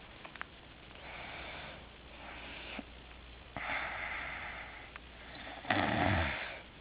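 A sleeping person breathing heavily through the nose and throat in several noisy breaths, ending about six seconds in with a louder, rough snore.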